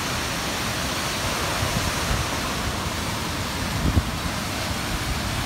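Wide stepped waterfall, creek water pouring over limestone ledges: a steady rush of falling water. Low thumps about two and four seconds in, from wind buffeting the microphone.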